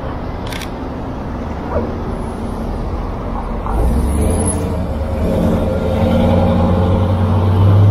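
Pickup truck engine running as it turns close past, a low rumble that grows louder toward the end, over steady city traffic noise.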